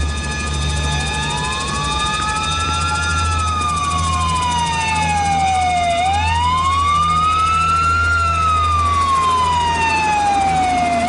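Police car siren wailing: one tone that climbs for about two seconds and falls for about three, twice over, and starts to climb again near the end.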